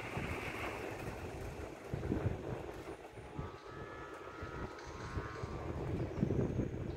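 Outdoor wind rumbling and buffeting on the microphone, with a faint steady tone of several pitches sounding for a couple of seconds in the middle.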